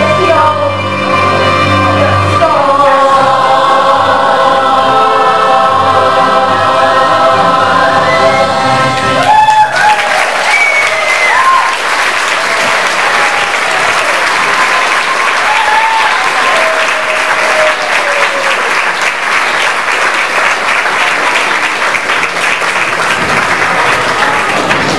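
A children's choir sings a long held final chord with accompaniment; about nine and a half seconds in the song ends and the audience breaks into loud sustained applause with a few whoops and cheers.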